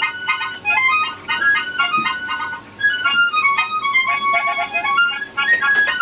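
Harmonica playing a quick melody of short notes, with a brief pause about two and a half seconds in.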